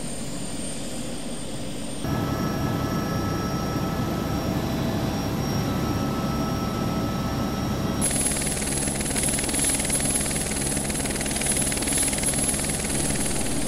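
Helicopter rotor and engine noise, steady and continuous. It grows louder about two seconds in and changes character again about eight seconds in.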